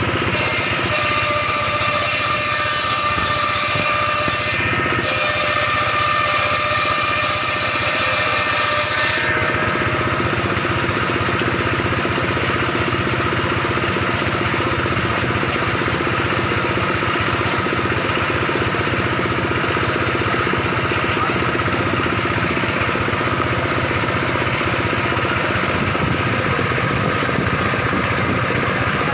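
Bench circular saw machine running steadily while ripping timber into roof battens; its high hiss drops away about nine seconds in.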